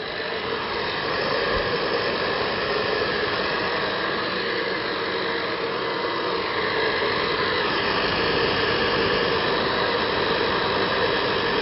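Electric heat gun running steadily, its fan blowing hot air onto a bent paddleboard fin to soften it for straightening.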